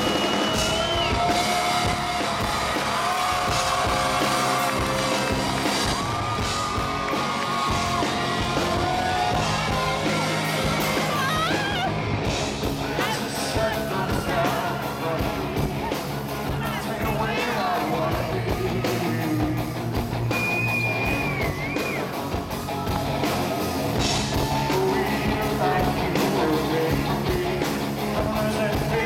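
Live rock band playing, with a male lead singer's vocals over electric guitar, heard from among the audience. A few high-pitched screams from fans cut through near the start and again about two-thirds of the way in.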